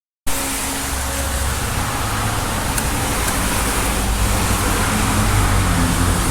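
Heavy rain falling steadily, an even hiss with a low rumble underneath, cutting in abruptly just after a moment of dead silence.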